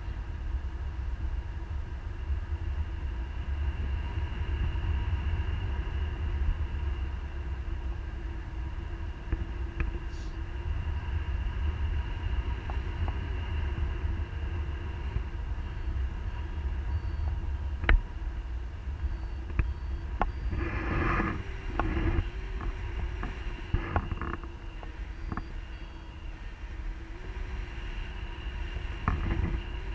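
Wind buffeting the camera's microphone in paraglider flight: a steady low rumble, with a cluster of sharp knocks and rustles about twenty to twenty-four seconds in.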